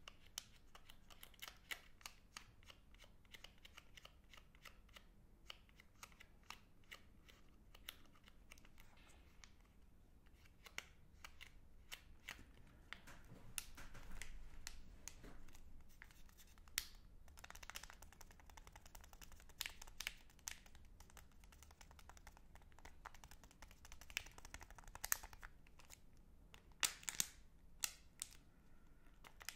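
Crinkling of a Magnum ice cream bar's shiny plastic wrapper squeezed and rubbed between the fingers: scattered crisp crackles, with a few louder ones in the second half.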